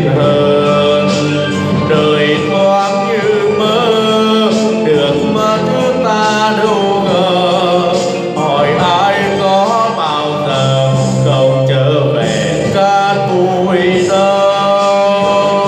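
A man singing a slow Vietnamese ballad into a handheld microphone over recorded backing music, with vibrato on held notes.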